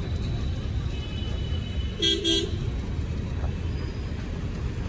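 A vehicle horn gives two short toots in quick succession about two seconds in, over the steady low rumble of a moving vehicle on the road.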